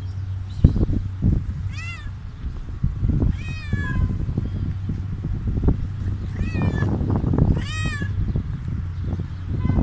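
Tortoiseshell stray cat meowing four times, short rising-and-falling meows a second or two apart, over low knocking and rustling.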